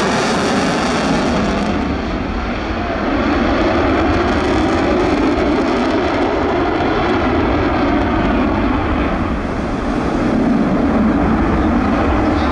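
Fixed-wing aircraft flying past, its engine noise loud and continuous, dipping briefly twice.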